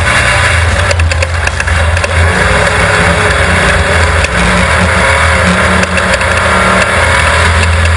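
Class 12 desert off-road race car's engine running steadily under load, with a cluster of clicks and knocks about a second in.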